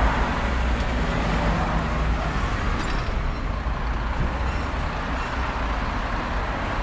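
Busy city street traffic: a steady wash of road noise with the low engine rumble of passing cars and heavier vehicles.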